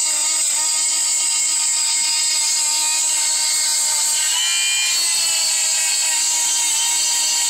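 Small handheld electric chainsaw sharpener running with a steady high-pitched whine as its grinding stone is worked along the saw chain's cutters.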